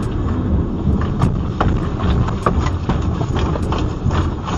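Low rumble inside a car with irregular knocking and rattling, several knocks a second, as the vehicle is shaken by an earthquake.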